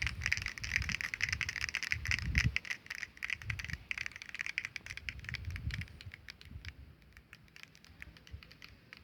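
Termites rattling: a dense, rapid patter of tiny clicks as soldier termites knock their heads against a dry leaf, the alarm drumming that termites use to warn the colony. The clicking is thickest in the first few seconds and thins out toward the end, over intermittent low rumbles.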